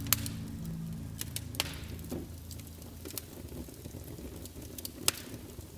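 Wood fire crackling in a fireplace: scattered sharp pops and snaps over a soft hiss.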